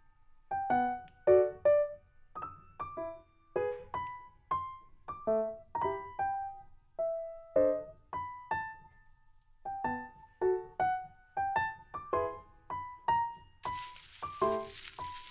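Background music: a gentle solo piano playing a steady run of single notes. Near the end, plastic wrap crinkles over it.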